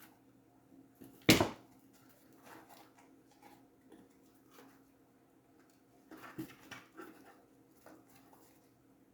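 Cardboard parts being handled and fitted together: one sharp knock about a second in, then a cluster of smaller knocks and rustles about six seconds in, over a faint steady hum.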